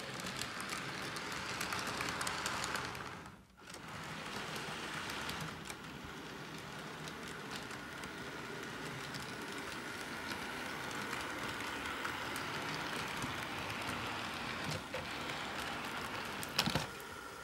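HO scale model train running along the layout track: a steady rattle of wheels on rail with a faint steady whine. The sound briefly drops out about three and a half seconds in, and a sharp knock comes near the end.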